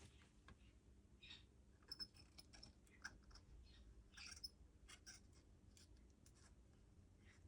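Faint, irregular scratches and small clicks of a soldering tool working over circuit-board pads, clearing away excess solder.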